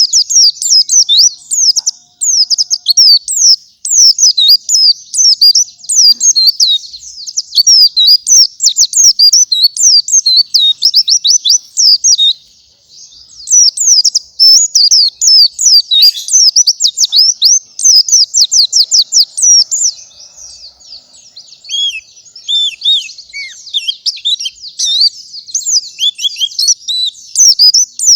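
A pleci (white-eye) singing a fast, high-pitched chattering song of rapid notes, with a brief pause about twelve seconds in.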